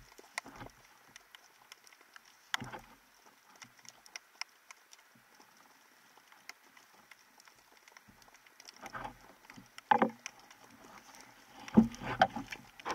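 Muffled underwater knocks and rustles with scattered faint clicks, from a spearfisher handling his speargun, spear shaft and a speared European sea bass. Louder knocks come about two and a half seconds in, around ten seconds, and near the end.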